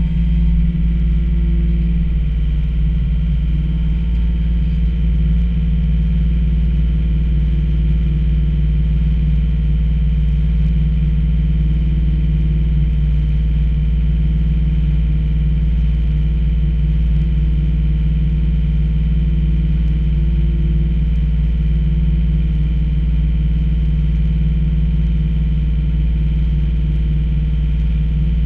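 Komatsu PC28 mini excavator's diesel engine idling steadily, with the boom and bucket at rest and no hydraulic work.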